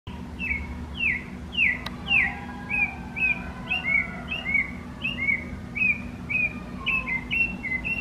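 A bird calling, repeating a short downslurred note about twice a second, over a steady low hum.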